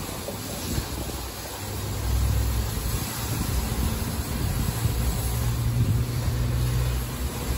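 LaserWash M5 touchless car wash machinery running as its overhead arm travels around the car. A steady low motor hum grows louder about two seconds in.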